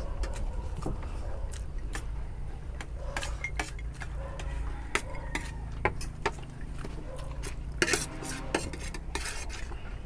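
Cutlery clinking and scraping against plates in irregular, quick strokes as fried rice is eaten fast, over a steady low hum.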